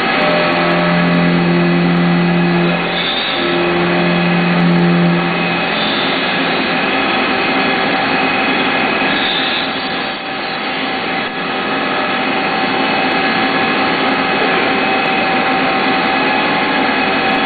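Mazak CNC machining center milling a steel part: the spindle and end mill run steadily, a whine of several steady tones over cutting noise. A strong low hum sounds in the first five seconds, breaking briefly at about three seconds, then drops out.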